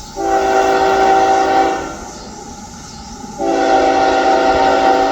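Locomotive air horn sounding two long blasts, a chord of several steady tones, about a second and a half apart, over the noise of the passing train.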